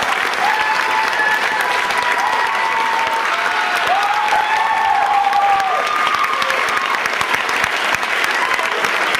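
An audience applauding steadily, with a few drawn-out voices calling out over the clapping.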